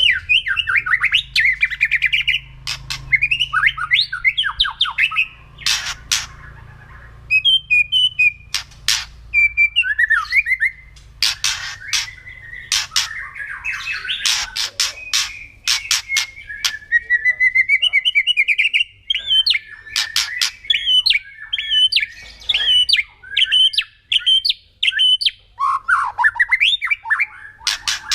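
White-rumped shama (murai batu) singing loud whistled phrases broken by many sharp cracking, rattling notes: its 'kretekan', the aggressive call that sets other shamas agitated.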